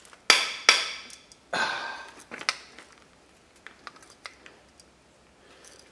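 Seized spark plug in a Ford 5.4 Triton cylinder head creaking as it is worked back and forth with a long beam torque wrench and socket: a few sharp creaks in the first two and a half seconds, then faint clicks. The plug is stuck in the head and feels as if it is getting tighter.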